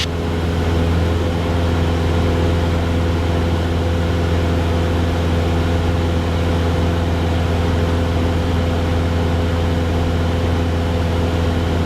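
Cessna 172 Skyhawk's piston engine and propeller drone, heard from inside the cabin. The engine runs steadily at climb power, a constant low hum with a few steady higher tones above it.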